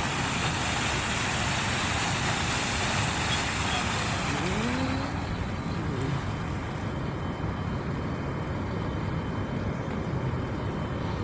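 Water rushing from a fire hydrant being flushed, a steady hiss that thins out about six seconds in, over the low steady rumble of an idling fire engine.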